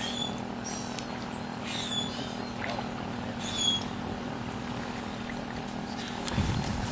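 Water sloshing around legs wading slowly through shallow creek water, a soft splash roughly every two seconds, over a steady low hum.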